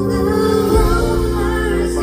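Live pop band playing, with a woman singing the lead vocal over sustained bass and chords; the bass moves to a new note about halfway through.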